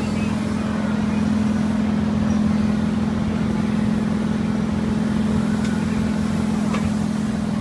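Machinery of a spinning kiddie helicopter carnival ride running with a steady, even mechanical hum.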